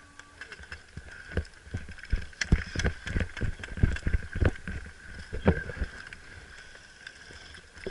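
Irregular dull thumps and knocks, about three a second for a few seconds in the middle, over a faint steady high tone.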